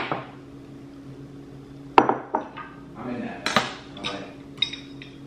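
A ceramic vase and a stack of hard black coasters set down and shifted on a wooden tray. A sharp knock comes first, a louder knock about two seconds in, then a run of clacks and ringing clinks.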